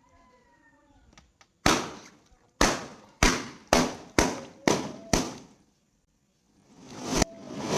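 Balloons popping one after another: seven sharp pops in quick succession, each with a short ringing tail. After a brief pause, a sound swells up and cuts off sharply, like a reversed pop.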